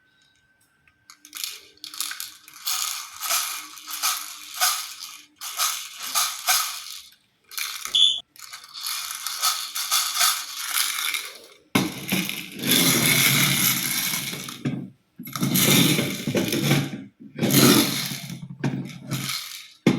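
Small hard plastic toys clattering and rattling in irregular bursts, with clinks and clicks. About twelve seconds in it turns louder and fuller, with several longer stretches of heavier rattling.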